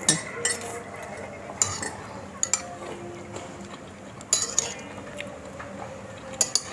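Tableware clinking: a spoon or utensil tapping against a dish or cup, with about eight light, irregular clinks.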